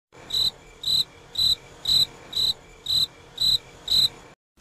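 Cricket chirping sound effect: eight short, evenly spaced chirps, about two a second, stopping just before the end. This is the stock 'awkward silence' cricket effect.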